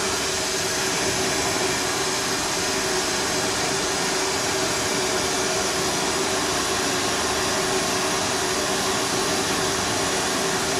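Oxy-fuel gas torch flame hissing steadily while it heats a front coil spring cherry red so the spring collapses, with a steady low hum underneath.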